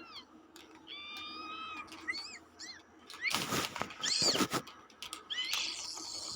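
A cat's high-pitched cries: a held squealing call, then a quick run of short chirps and further squeaks with noisy hissing bursts between them.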